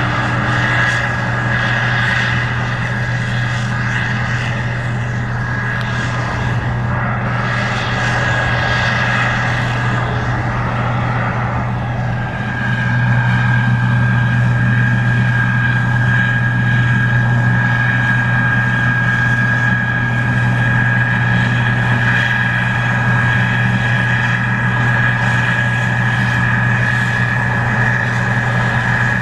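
Case IH 2388 Axial-Flow combine running steadily while harvesting corn: a low engine drone with a steady high-pitched whine over it, growing louder partway through.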